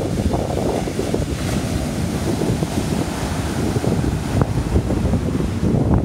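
Atlantic surf washing in steadily, overlaid by wind buffeting the microphone with a loud, gusty low rumble.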